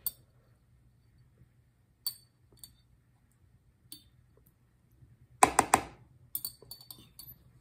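Sparse light clinks of a small metal hook against a glass orchid flask as plantlets are teased out, with a quick run of four or so louder knocks a little past halfway through.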